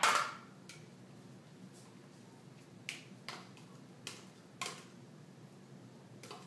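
A metal utensil knocking and tapping against a small bowl as cut strawberries are pushed out of it into a salad bowl. There is a sharp knock at the start, then about six light clicks spread over the next few seconds.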